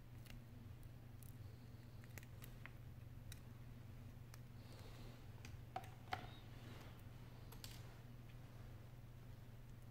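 Faint scattered clicks and light taps from handling the iPhone 6s display assembly and its small home button, with two sharper clicks about six seconds in, over a steady low hum.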